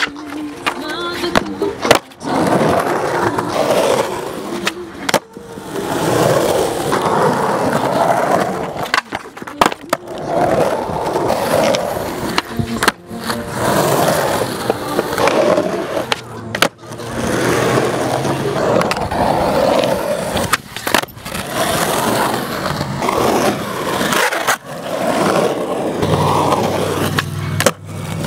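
Skateboard wheels rolling loudly over concrete banks, broken by sharp clacks of tails popping and boards landing, in a string of short clips with abrupt cuts.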